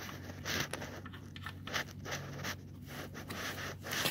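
Faint scratching and scraping of a hand threading the oil drain plug into the engine's aluminium oil pan, a few short scrapes over a steady low hum.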